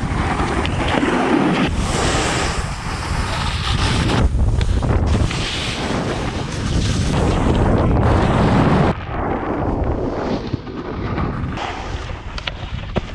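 Wind rushing over the microphone, with a snowboard's base and edges scraping over snow and sliding onto rails and boxes and a few short knocks. The rush drops sharply about nine seconds in.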